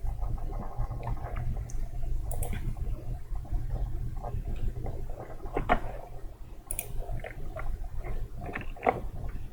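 Steady low hum of background noise, with a few faint scattered clicks.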